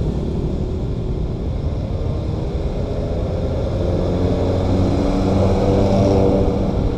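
Intercity coach's diesel engine growing louder as the bus approaches and passes close by, loudest about six seconds in, over steady road traffic. The sound is muffled by the camera's casing.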